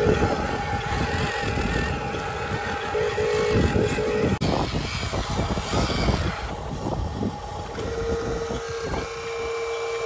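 Huina RC dump truck's electric drive motor and gearbox whining as it drives, with steady tones over a rough mechanical noise. The sound cuts out for an instant a little over four seconds in.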